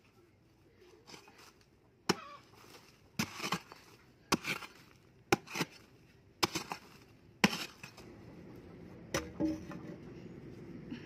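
Hoe blade striking into hard earth, seven strokes about a second apart, each a sharp hit followed by a softer knock as the soil breaks loose.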